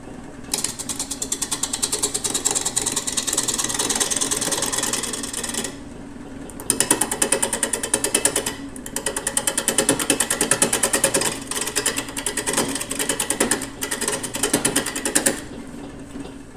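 Wood lathe spinning a driftwood burl while a turning tool cuts it, making a rapid, even chatter. It comes in three stretches, with short breaks about six and eight and a half seconds in.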